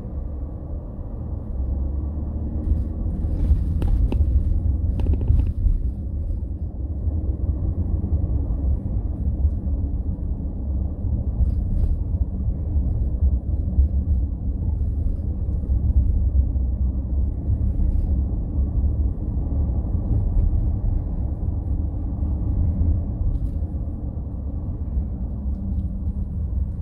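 Car driving on a city street, heard from inside the car: a steady low rumble of engine and tyre noise, with a few faint clicks about four to five seconds in.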